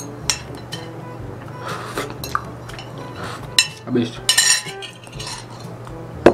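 Metal fork clinking and scraping against a bowl, a series of sharp clinks as the last of the fried noodles are scooped up. A steady low hum runs underneath, and a single louder knock comes near the end.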